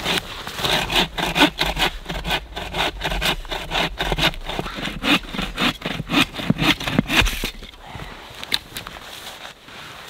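A small bow saw cutting through a log in steady back-and-forth strokes. The sawing stops about three-quarters of the way through, leaving quieter handling sounds and a couple of light knocks.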